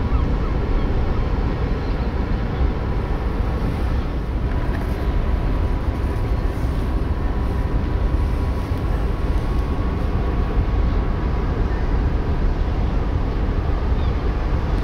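Steady low rumble of the ferry Etretat's engines as she comes in to berth. A faint thin steady whine joins about a third of the way in and fades near the end.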